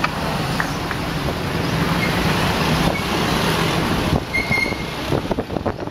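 A truck driving in traffic: a steady engine and road rumble with wind on the microphone, easing off a little after about four seconds.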